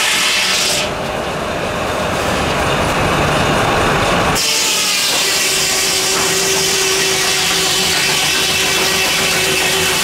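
Steam-driven antique sawmill's circular saw cutting through a log. The sound shifts abruptly twice in the first half, and a steady whine runs through the second half.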